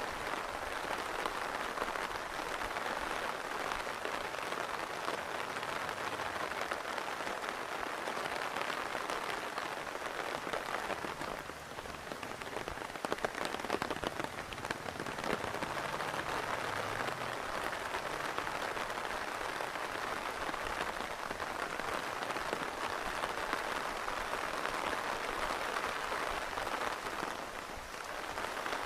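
Steady rain falling and pattering on surfaces, with a slight dip in level about twelve seconds in.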